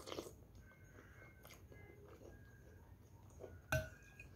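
Quiet room with faint mouth sounds of someone eating off a spoon, and one short sharp clink or knock near the end.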